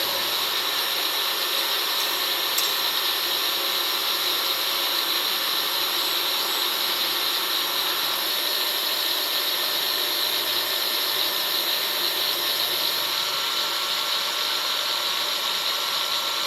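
Stick welding arc burning, a steady unbroken hiss.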